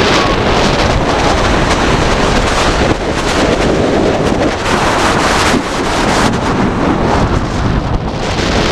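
Loud, steady wind rushing and buffeting over the front-seat rider's camera microphone as Kingda Ka's hydraulic launch sends the coaster train at high speed down the launch track and up the top-hat tower.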